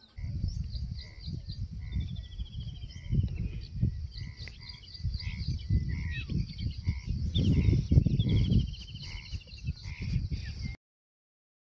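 Forest ambience under a loud, gusting low rumble of wind on the microphone. Over it a bird repeats a short clear note about twice a second, with two quick descending trills, and a steady high insect buzz runs underneath; it all cuts off abruptly near the end.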